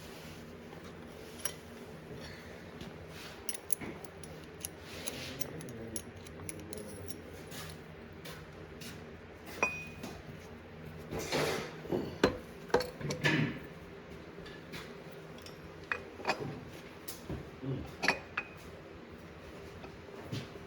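Steel transmission parts and hand tools clinking and knocking against each other during disassembly. Scattered light strikes, with a busier run of knocks about eleven to thirteen seconds in and a short metallic ring just before it, over a faint steady hum.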